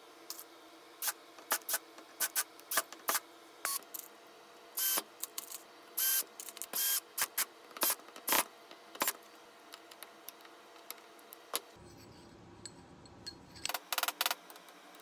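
Irregular sharp metallic clicks and clinks from a hand driver and hardware as a metal pipe flange is fastened to a plywood table top, a few strikes ringing briefly. After a quieter stretch, a quick cluster of clicks comes near the end.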